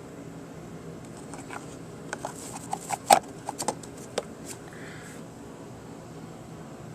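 A quick run of light clicks and taps, about a dozen over three seconds, the sharpest about three seconds in, over a steady faint hiss: small hard parts being handled.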